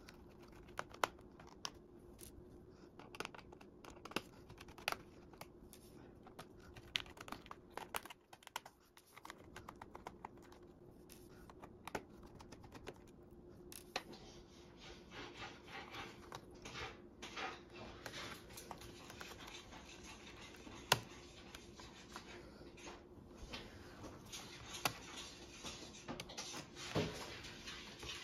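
Hands handling the plastic keyboard assembly and its clear backing sheet inside a Lenovo ThinkPad X240: faint scattered clicks, scratches and rubbing of plastic, with one sharper click about two-thirds of the way through.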